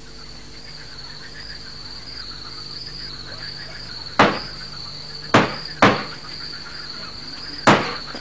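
Crickets chirping steadily in one high, continuous trill, with four sharp knocks in the second half that stand out as the loudest sounds.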